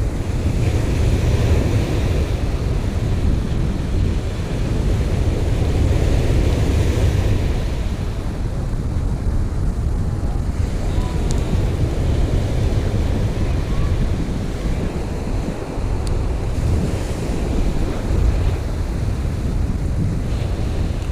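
Ocean surf breaking and washing up a sandy beach, swelling and easing with the waves, under heavy wind rumble on the microphone.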